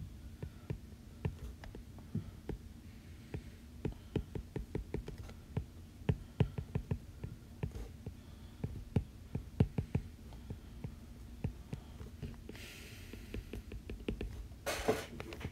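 Stylus tip tapping and clicking on an iPad's glass screen in quick, irregular short strokes while ladders are drawn, over a steady low hum. A brief rush of noise comes near the end.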